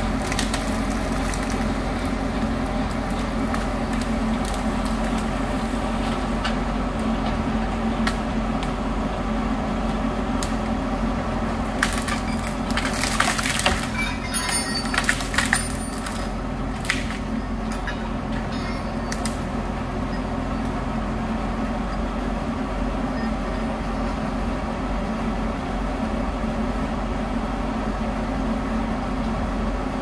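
Engines of tree-removal machinery running steadily, with a spell of wood cracking and splintering about twelve seconds in that lasts a few seconds.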